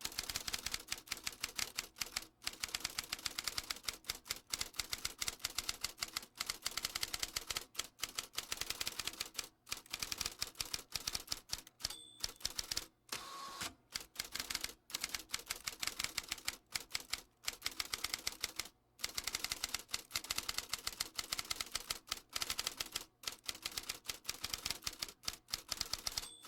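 Typewriter typing in fast runs of rapid key strikes with short pauses between them, and a brief ding about halfway through.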